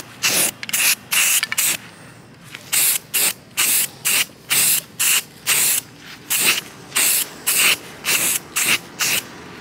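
Aerosol can of spray-on truck bed liner sprayed in short hissing bursts, about two or three a second, with a pause of about a second near two seconds in.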